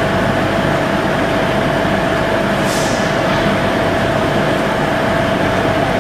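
Caledonian Sleeper train standing at the platform, its equipment running with a steady drone, a rumble and a constant whine. A short hiss of air comes in a little under three seconds in.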